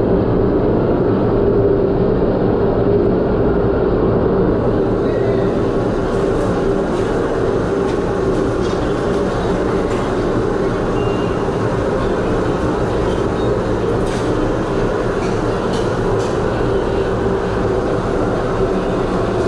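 Steady, loud machine drone with a constant hum, unbroken throughout, with a few faint clicks in the middle.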